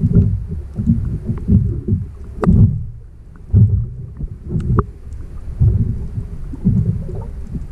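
Uneven low rumbling and buffeting of water and wind noise on a small boat's microphone, with two sharp knocks about two and a half and five seconds in.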